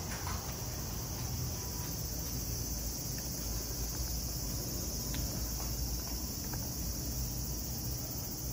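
Cicadas droning steadily on one high pitch, over a low rumble, with a few faint clicks.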